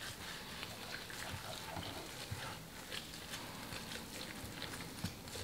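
Black nitrile-gloved hands patting and pressing spice rub onto the skin of a raw whole chicken: faint, irregular soft pats and squishes of wet skin, with light glove rustle.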